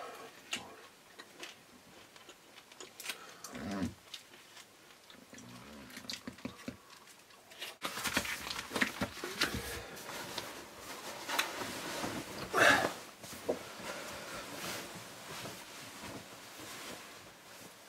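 Quiet handling sounds of magazines being leafed through on a table: paper rustling with scattered light clicks and knocks, sparse at first and busier in the second half, with one louder rustle about two-thirds through.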